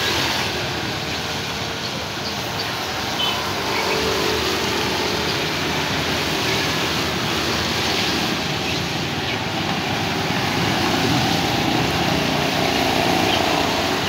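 Road traffic on a wet road: scooter and motorcycle engines running past with a steady hiss of tyres on wet asphalt, growing a little louder in the second half as more vehicles come close.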